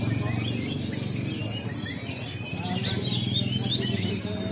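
Several songbirds singing at once, a dense stream of fast chirps and trills, over a low murmur of voices.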